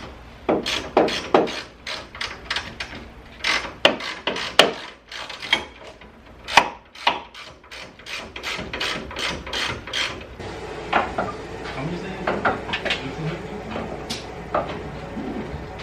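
Hand tools working on a car's coilover suspension during removal: a string of sharp metal clicks and knocks, a few a second, for about the first ten seconds, then quieter scraping and handling noise.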